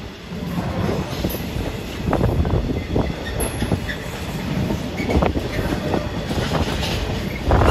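Freight train wagons rolling past over a steady low rumble, with wheels clacking irregularly over rail joints. It grows louder near the end.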